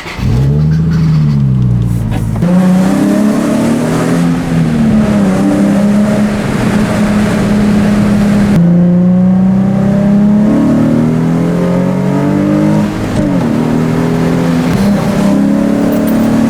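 Nissan 350Z's VQ35HR V6 engine, breathing through a cold air intake, pulling away and accelerating through the gears. The engine note climbs steadily, dropping back with each shift, three times.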